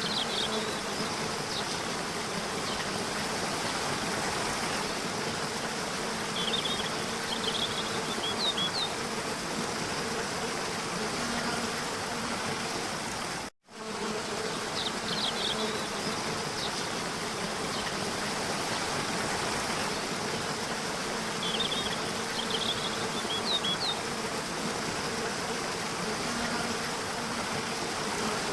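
Steady rush of falling water under a continuous insect buzz, with small clusters of short high chirps that come back every quarter-minute or so. The whole sound cuts out for a split second about halfway through.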